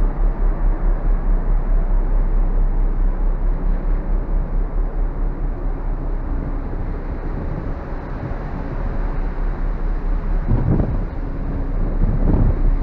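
Wind buffeting the microphone on the open deck of the passenger ferry Ogasawara Maru underway at sea, over a steady rush of the ship's running noise and wake. Stronger low gusts come in about ten seconds in and again near the end.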